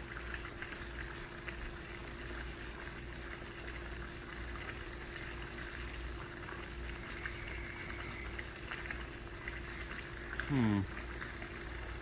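Microwave oven running with a steady hum, with faint crackling from the iPhone 6 burning inside it. A brief falling-pitch voice sound comes about ten and a half seconds in.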